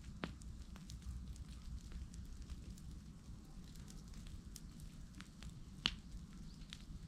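Open bonfire of dry grass and cut branches crackling, with scattered sharp pops over a steady low rumble; the loudest pop comes about six seconds in.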